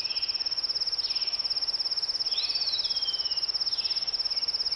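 Forest ambience: an insect trilling steadily in a fast, even pulse, with one bird call about halfway through that rises and then slides down.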